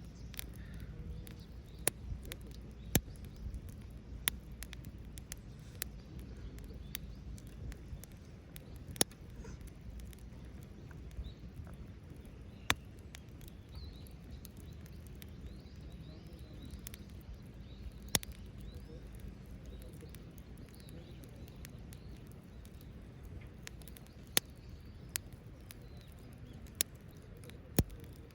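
Wood fire crackling in a Belmont TABI folding fire stand: sharp, irregular pops every second or two, with finer crackle, over a low steady rumble.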